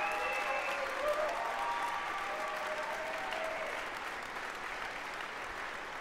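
Audience and band applauding, the clapping slowly dying away, with a few voices faintly heard over it.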